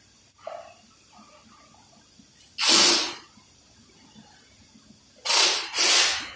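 Three short hissing blasts from a compressed-air blowgun, each about half a second: one, then a quick pair near the end. A light knock of a tool on metal comes near the start.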